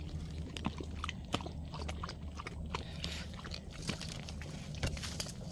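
Footsteps crunching on dry leaves and twigs: irregular crackles and snaps over a low steady hum.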